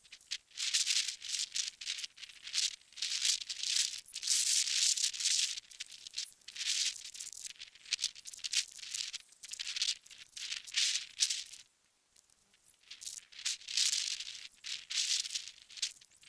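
Irregular rustling hiss coming in short bursts, with a brief lull about twelve seconds in.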